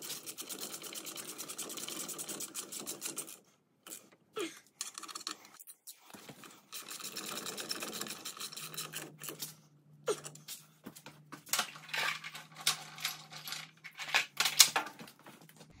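Socket ratchet clicking rapidly in two long runs as brake caliper mounting bolts are run in and tightened, followed by a series of separate sharper metal clicks near the end.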